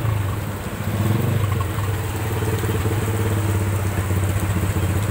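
Motorcycle engine running steadily with an even, rapid pulse that dips briefly about a second in.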